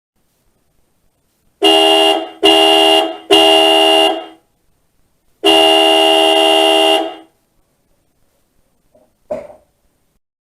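Hella aftermarket car horns, wired straight to the battery through a relay, sound three short honks and then one longer blast of about a second and a half. A brief knock follows near the end.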